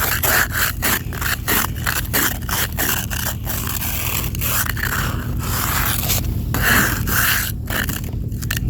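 Plastic ice scraper scraping thick ice off a car's glass in quick repeated strokes, about two or three a second, with longer strokes in the second half. A steady low hum runs underneath.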